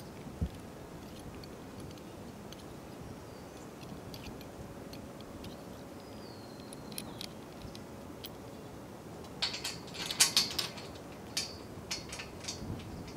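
Small metal clicks and rattles of solar-panel end-clamp hardware being handled and fitted at the edge of a module. A few scattered ticks at first, then a quick run of louder clicking and rattling about ten seconds in.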